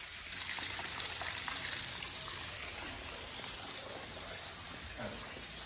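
Steady rush of running water, like a garden stream or small cascade, running evenly throughout.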